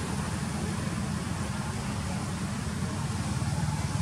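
Steady low outdoor rumble with a faint hiss above it, with no distinct event standing out.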